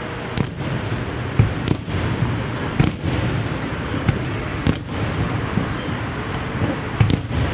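Fireworks going off in an irregular string of about nine sharp bangs over a steady low rumble.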